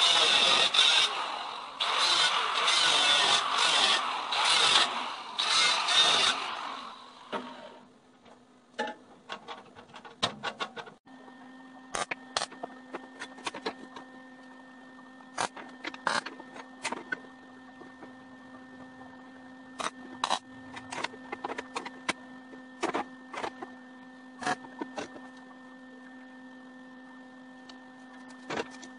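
Angle grinder grinding steel in several loud pulses for about seven seconds, then stopping. After that, a steady hum with scattered light metallic clicks and clanks as steel square tubing is set and shifted on a steel table.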